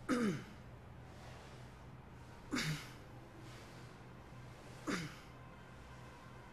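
A woman's effortful exhales as she does inverted sit-ups: three short, breathy exhales about two and a half seconds apart, each with her voice dropping quickly in pitch.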